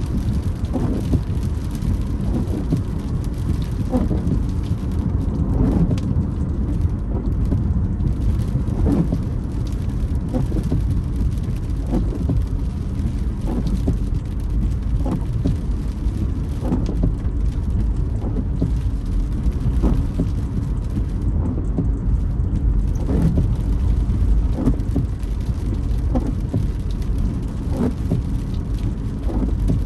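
Car on a rainy road heard from inside the cabin: a steady low rumble of road and engine noise with rain on the car, and windshield wipers sweeping back and forth, creaking at a regular pace.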